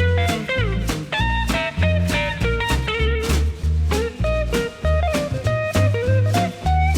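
Background music: electric guitar with bass and drums in a bluesy style, with bending guitar notes.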